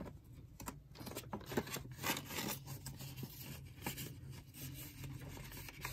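Paper banknotes being handled and stuffed into a budget wallet: faint, irregular paper rustles and light taps.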